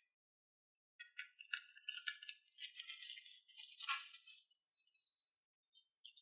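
Slime being stirred and squished by hand, giving faint, sticky crackles and small pops in irregular clusters from about a second in until about five seconds.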